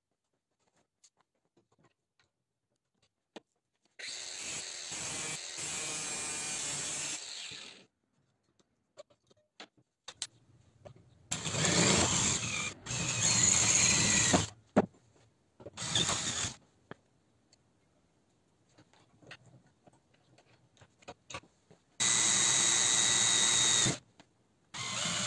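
Electric drill boring a hole through a small metal piece clamped in a bench vise, run in several separate bursts of one to four seconds with quiet gaps between. Small knocks and clicks fall in the gaps.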